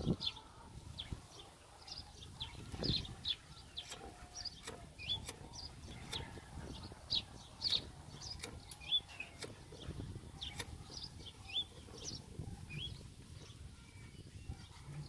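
Small birds chirping and twittering throughout, with irregular crinkling, rustling and sharp clicks from paper and dry kindling being stuffed into a clay-and-brick stove's firebox.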